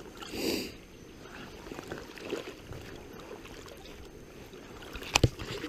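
River water lapping and gurgling close to the microphone, with a short rustle about half a second in and a single sharp knock near the end.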